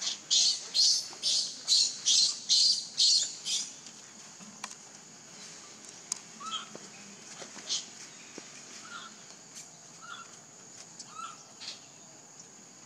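Wild animal calls over a steady high insect drone. A run of about eight rapid, loud, raspy calls fills the first three and a half seconds, then short faint chirps repeat roughly once a second.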